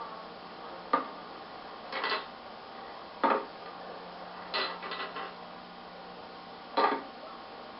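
Loose metal pieces clinking and clattering in five or so separate clanks about a second apart: broken engine parts from inside a 1967 Briggs & Stratton lawnmower engine's crankcase, handled during an oil change.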